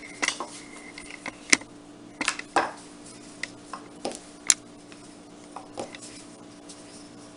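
Small rolling pin rolling out fondant on a wooden tabletop: scattered sharp knocks and clicks as the pin and its handles bump the table, over a steady low hum.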